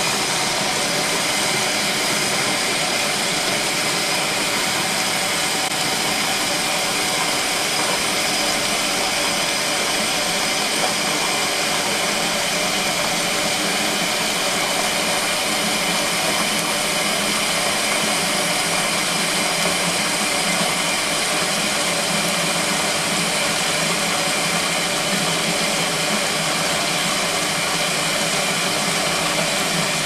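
Kuppet twin-tub portable washer running: a steady motor hum with a constant mechanical drone and noise that holds at the same level throughout.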